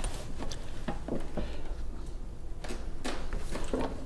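A series of light knocks and clunks from an 1852 Washington cast-iron hand press being worked by hand, over a steady low hum.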